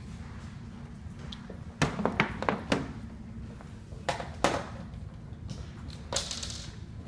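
Knocks and clatter of trundle bed parts being handled during assembly. A quick run of knocks comes about two seconds in, two more around four seconds, and a short scraping rustle near the end, all over a steady low hum.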